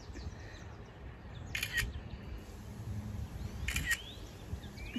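Camera shutter going off twice, about two seconds apart, each a quick double click as a photo is snapped.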